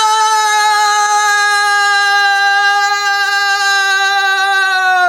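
One person's long held shout: a single unbroken note, loud and sustained, sinking slowly in pitch.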